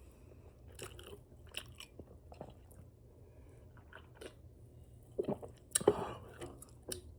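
Open-mouthed chewing of spicy chicken wings close to the microphone: wet smacks and lip clicks at irregular intervals, with a louder run of smacks about five to six seconds in.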